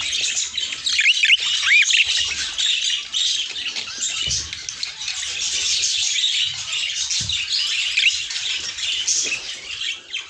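A flock of budgerigars chattering, a dense, continuous mass of chirps and squawks, with a couple of clear whistles about one to two seconds in.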